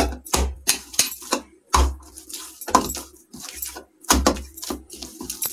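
Hand kneading soft dough in a ceramic bowl: irregular knocks about twice a second as the dough is pushed against the bowl, with metal bangles on the wrist jingling at the strokes.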